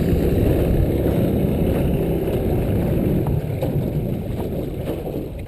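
Boat's outboard motor running at low speed, a steady low drone that gradually eases off and grows quieter as the boat slows onto its fishing spot.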